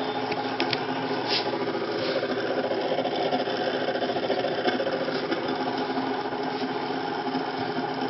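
Small electric motor and gearing of a motorised door opener running steadily, with a buzzing hum and a few light clicks in the first second or so.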